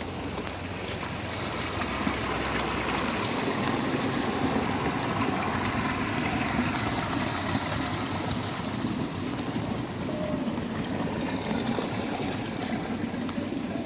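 Heavy rain falling steadily, a dense even hiss of rain and running water, slightly louder after the first couple of seconds.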